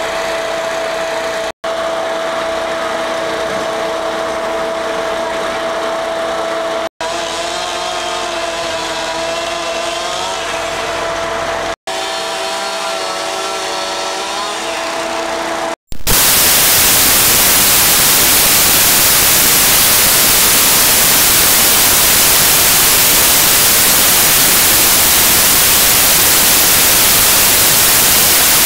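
Fire apparatus engines running with a steady drone and a constant high tone, cut by a few brief dropouts. About sixteen seconds in, this gives way to loud, even static hiss that lasts to the end.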